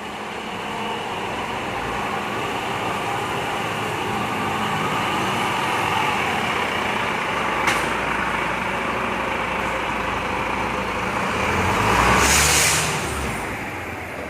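Volvo FM 370 truck's diesel engine running as it draws closer, getting louder, then fading, with a single sharp click about halfway through and a loud hiss near the end as it is closest.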